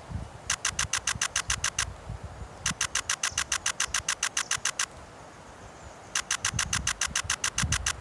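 Nikon Z6III camera shutter firing in three continuous high-speed bursts of about ten frames a second, each burst a rapid even run of crisp clicks. Soft low thumps sit underneath.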